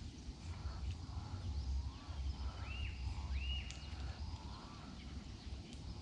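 Birds calling: a few short calls that rise and fall in pitch, two higher ones close together a little before halfway, over a low rumble of wind on the microphone.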